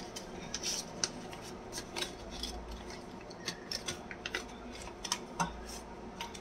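Indian ₹500 paper banknotes rustling and crinkling as they are handled and counted by hand, with many small irregular crackles and ticks.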